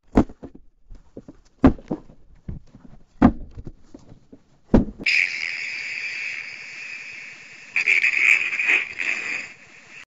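Comedy fart sound effects: four loud, sharp fart blasts about a second and a half apart, with smaller sputters between them. Then a long, steady, high-pitched hissing fart effect begins about halfway through, gets louder near the end and fades out.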